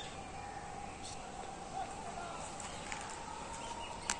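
Faint, steady outdoor background with a thin steady tone and a few faint chirps. A sharp click comes near the end as the phone is handled.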